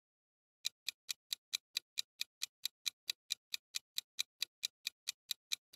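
Clock-ticking sound effect marking a quiz answer countdown: even, crisp ticks about four to five a second, starting a little under a second in.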